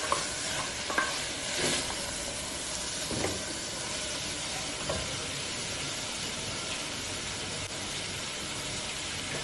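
Sliced onions and green chilies frying with a steady sizzle in an open Pigeon pressure cooker, stirred with a wooden spatula that knocks and scrapes against the pot a few times in the first half; the onions are being fried until brown.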